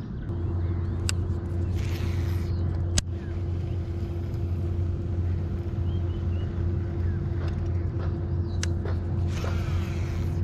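A boat's motor starts up and runs steadily with a low, even hum. A few sharp clicks come over it.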